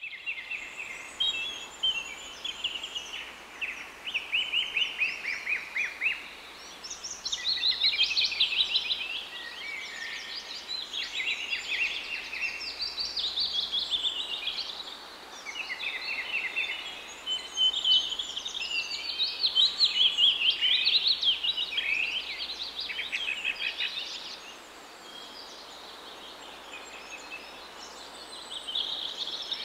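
Several songbirds singing at once, with overlapping high chirps and fast trills that thin out for a few seconds near the end.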